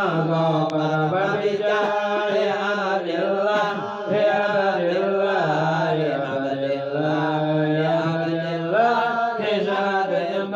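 Voices chanting an Islamic dhikr in Arabic: a slow, melodic line carried without a break over a steady low held tone.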